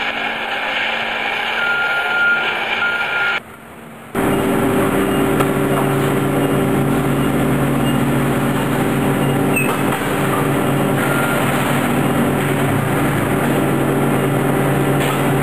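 Cardboard baling machine running for about three seconds, with a few short high tones. After a brief drop, an LPG forklift's engine runs steadily as it carries a cardboard bale.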